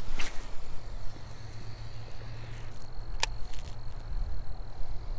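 Wind buffeting the microphone as a steady low rumble, with one sharp click about three seconds in as the baitcasting reel is handled. A faint steady high tone runs through most of it.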